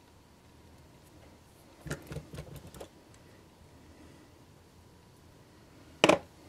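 Small hand tools being handled and set down on a workbench: a quick run of light taps and clicks about two seconds in, then one sharp, louder clack near the end.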